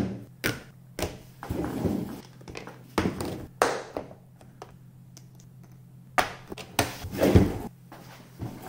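Tools and supplies (crimping pliers, wire spools, a plastic parts box) being set down one after another on a workbench covered with a cutting mat: a series of separate knocks and thunks, over a faint steady low hum.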